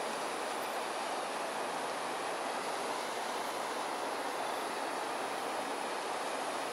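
Steady rush of water pouring out of concrete storm-drain culverts into a canal.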